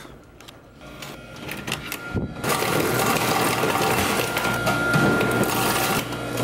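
Hotel ice machine dispensing ice into a plastic ice bucket: after about two seconds of quiet, a dense clatter of cubes dropping into the bucket, with a steady whine from the machine alongside.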